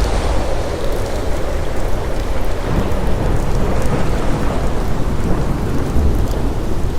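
Steady rain falling, with a deep low rumble underneath.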